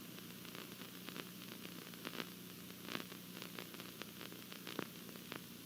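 Faint steady static hiss with a low electrical hum, broken by scattered small clicks.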